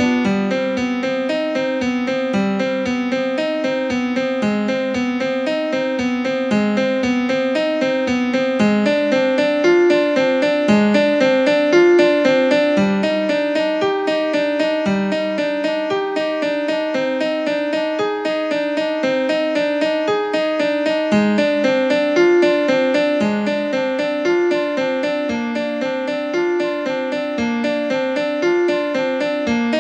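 Piano music playing, a steady flow of notes.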